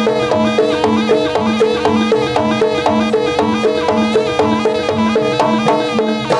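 Live jaranan (kuda lumping) ensemble music played over a sound system: a fast, even stream of gamelan-style pitched notes over a low tone that repeats about twice a second. The music breaks off at the very end.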